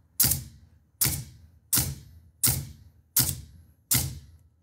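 Hitachi NV45AB2 pneumatic coil roofing nailer firing into a wooden block six times in steady succession, about one sharp crack every 0.7 seconds. It fires on every pull after a rebuild with new O-rings: the nailer is no longer skipping.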